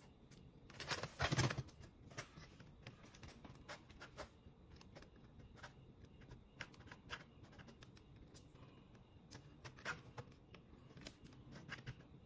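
Light plastic clicks and scrapes of an ASUS X502C laptop's palm-rest top case being handled over the chassis while the keyboard ribbon cable is connected underneath, with a louder rustle about a second in.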